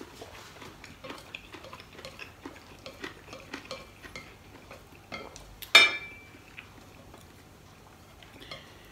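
Eating at a table: small scattered clicks of chopsticks and chewing, then one sharp clink of chopsticks against a ceramic plate almost six seconds in, with a short ring.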